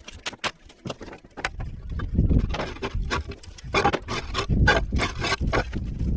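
Irregular knocks and clatter of hands-on timber-frame building work, a quick run of sharp knocks over a low rumble.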